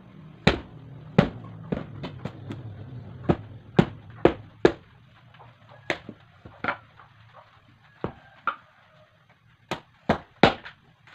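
Machete chopping into a large, firm green watermelon-like fruit on a wooden stump: a string of sharp, irregularly spaced chops, quicker near the end.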